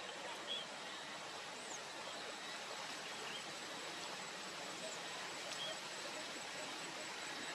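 Steady outdoor rushing hiss with a few faint, short bird chirps scattered through it, about one every second or so.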